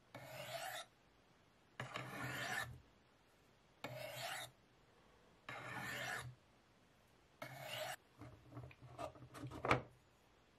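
Steel knife blade drawn down the flat faces of the dark medium-grit ceramic stones of a Spyderco Sharpmaker: five separate sharpening strokes about two seconds apart, for step two's utility edge. A few light clicks follow near the end.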